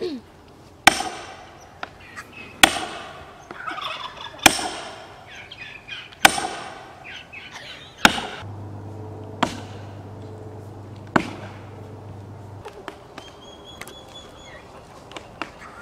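Axe chopping into the trunk of a large tree, about seven sharp blows roughly two seconds apart that stop near the end. Domestic fowl call in between the strikes.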